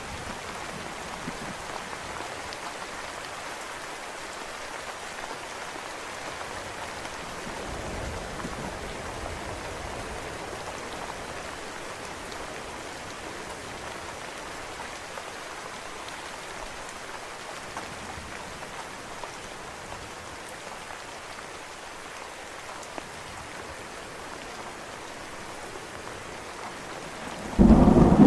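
Steady rain falling, with a sudden loud rumble of thunder breaking in near the end.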